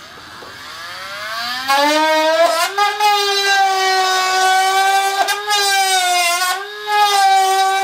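Dremel Stylus cordless rotary tool with a drill bit, spinning up with a rising whine and then running at a steady high whine, its pitch sagging slightly now and then as the bit cuts. It is drilling away the plastic knuckle of a Robart hinge to expose the metal hinge pin.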